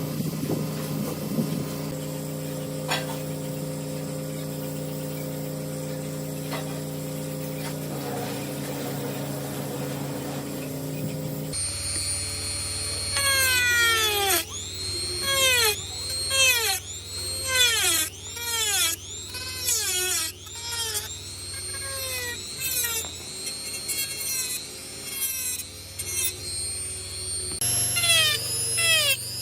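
A power tool's motor runs steadily for roughly the first eleven seconds. It then gives way to a string of quick falling whines, about one a second.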